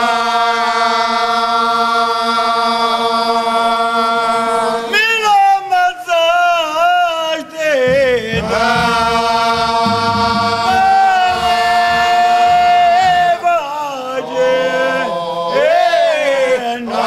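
A group of men singing a slow Holy Week devotional chant together, without instruments. The chant moves in long held notes, broken by wavering, ornamented runs about five seconds in and again near the end.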